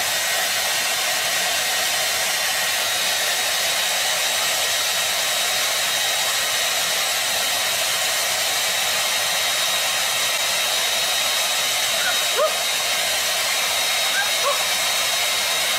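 Handheld hair dryer running steadily: an even rush of blown air with a thin high whine over it.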